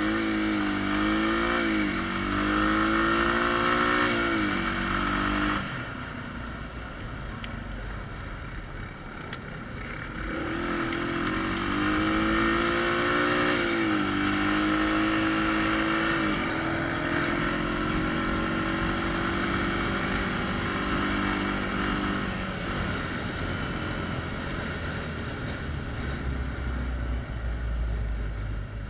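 ATV engine running under the rider, its pitch climbing and falling as the throttle is opened and eased, loudest twice, with steady wind and tyre noise from riding along a gravel road shoulder. The engine sinks into that wind and road noise near the end.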